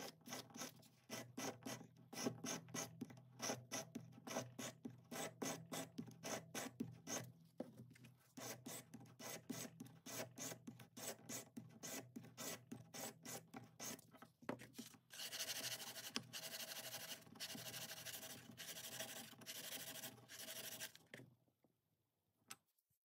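Sanding stick wrapped in wet-and-dry paper rubbing back and forth on a metal ring held against a wooden bench peg, in quick rasping strokes about four a second. Past the halfway point the strokes turn faster and run together into a steady scrubbing, which stops shortly before the end.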